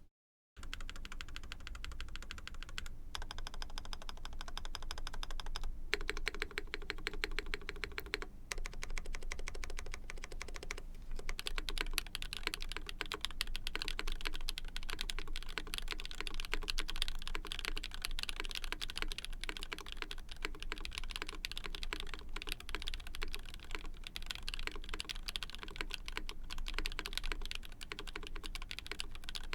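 Continuous typing on a Kyuu mechanical keyboard with a POM plate, Krytox 205g0-lubed Oooolong long-pole switches and GMK keycaps: a dense, steady stream of key clicks that starts about half a second in.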